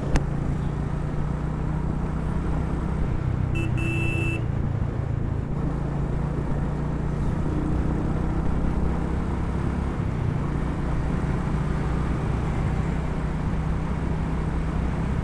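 Royal Enfield Hunter 350's single-cylinder engine running steadily at cruising speed, with wind and road noise. About four seconds in, a vehicle horn sounds twice, a short toot then a longer one.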